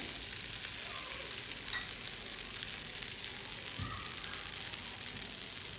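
Yeasted batter cooking in a lightly oiled non-stick frying pan, a steady soft sizzle with fine crackles as bubbles rise through it and open small holes on top.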